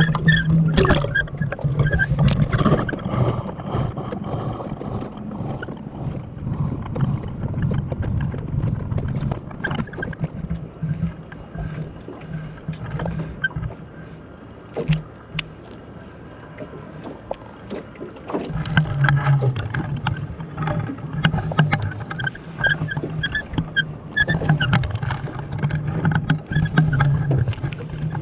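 Water noise picked up by a camera lowered into the sea from a rowboat, sloshing and churning with frequent sharp knocks and clicks. It settles down for a few seconds mid-way, then picks up again.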